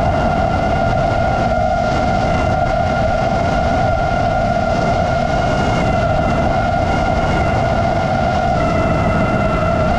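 FPV racing drone's motors and propellers giving a steady whine, which shifts slightly in pitch near the end as the throttle changes, over a low rush of air.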